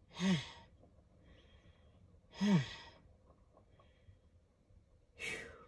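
A man sighing heavily three times, about two and a half seconds apart. Each is a long breathy exhale with a falling groan in the voice, and the last is softer. They are sighs of exhaustion after heavy physical work.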